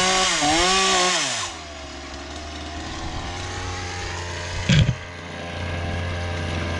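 Two-stroke chainsaw running at full throttle, its pitch dipping briefly, then the revs falling away to a steady idle about a second and a half in. A single dull thump sounds near the end while it idles.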